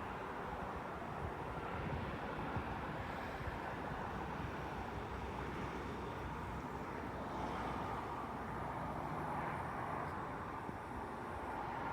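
Steady outdoor ambience at night: an even background rumble, such as distant traffic, with a faint steady tone and no distinct events.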